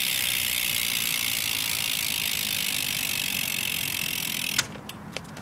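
Stock BMX rear hub's freewheel pawls clicking as the rear wheel spins free, so fast that the clicks run together into a steady buzz. It cuts off abruptly near the end, leaving a few faint ticks.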